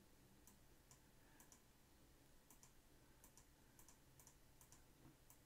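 Faint computer mouse clicks at irregular intervals over near silence.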